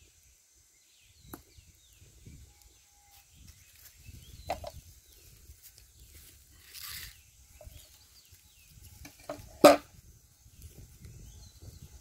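Outdoor rural ambience with faint bird chirps and a few sharp knocks and clatters as kitchen things are handled and set down. The loudest knock comes near the end, and there is a brief hiss about seven seconds in.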